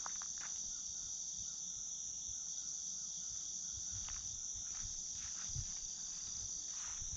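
Steady high-pitched chorus of crickets and other insects, with a second trill that comes and goes in stretches of a second or two.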